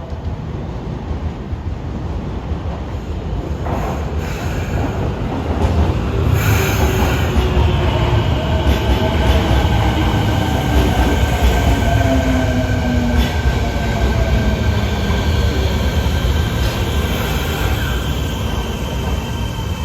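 Fukuoka City Subway 1000N series train running past and slowing, its drive giving a whine that falls in pitch as it brakes, over a high steady whistle and heavy rumble. This is the jet-engine-like odd noise these trains are known for.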